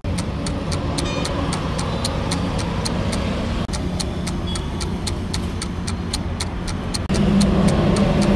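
Roadside traffic rumble with a fast, even ticking over it, about three ticks a second. The sound shifts abruptly twice, and a louder engine hum comes in near the end.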